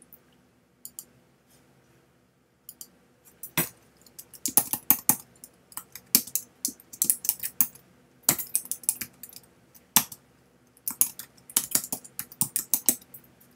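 Typing on a computer keyboard: a few single clicks in the first seconds, then quick runs of keystrokes as a file name is typed in.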